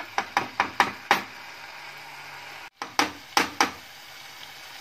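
Spatula knocking against the side of a nonstick pot while stirring thick masala paste as it fries: about five quick knocks in the first second, then three more about three seconds in, over a low steady hiss.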